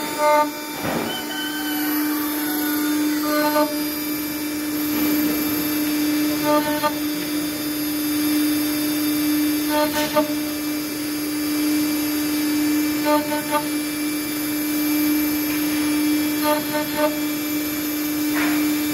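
CNC milling machine's spindle running with a small cutter engraving a die, a steady hum throughout. Short buzzing blips recur about every three seconds.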